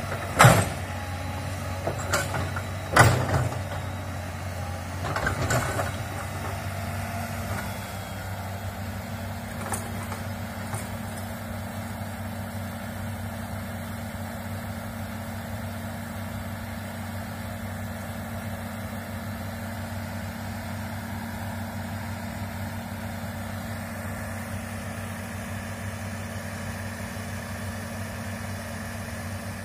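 Komatsu hydraulic excavator's diesel engine running steadily, a low drone. Several loud, sharp knocks come in the first six seconds, then the engine runs on alone.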